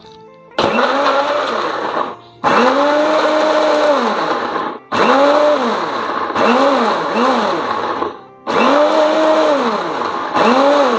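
Electric countertop blender grinding chopped ginger, turmeric, onion, garlic and shrimp paste with a little water into a wet spice paste. It is run in a series of pulses, its motor pitch climbing and dropping with each one.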